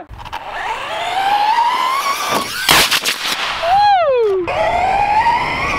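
RC car's electric motor whining up in pitch as it accelerates, then about two and a half seconds in a short, loud rocket-motor blast as the fast-burning solid charge fires. A pitched sound slides down just after, and the motor whine climbs again near the end.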